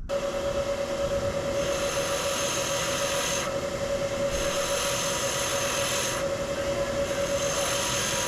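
Electric grinder with a wire wheel running at a steady pitch while brushing a cast brass bar, giving a harsh metallic rasp. The rasp eases briefly twice, around the middle and again a little later, as the contact lightens.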